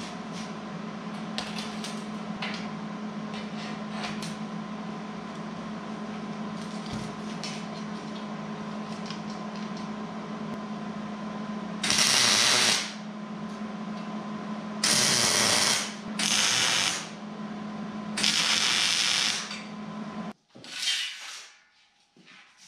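Four short bursts of wire-feed welding on steel angle iron from a Klutch welder, each a loud hiss lasting about a second, like tack welds. They play over a steady hum that cuts off near the end, followed by a few clanks as the steel frame is handled.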